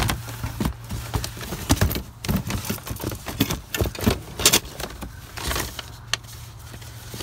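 Plastic DVD cases, books and papers being shuffled and knocked about in a cardboard box: irregular rustles, clacks and knocks, busiest in the first five seconds and sparser after, over a steady low hum.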